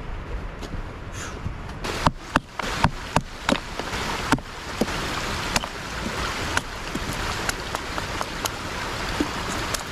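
Knife being batoned down through a small split of firewood on a stump to make kindling: sharp, irregular knocks of the baton striking the knife, about one or two a second, starting about two seconds in, over a steady rushing background.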